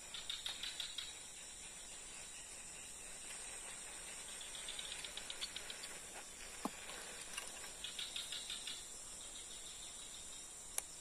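Insects drone steadily at a high pitch. Three short runs of rapid clicking come through it, near the start, about halfway and after about eight seconds, and there is one sharp click near the end.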